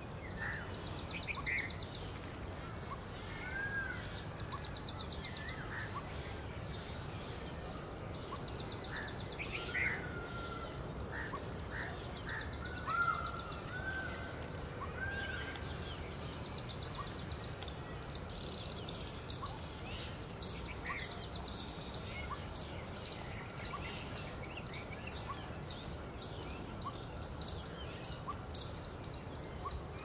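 Outdoor bird calls: short chirps and whistles with a few louder calls, over a high, rapid trill that comes back every few seconds. Past the middle, a fast high ticking joins in.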